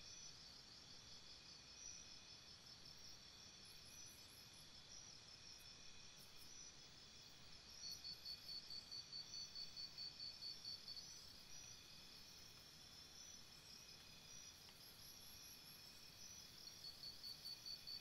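Faint insect chorus: several steady high-pitched trills together. A louder pulsing chirp of about seven pulses a second comes in about eight seconds in, lasts about three seconds, and starts again near the end.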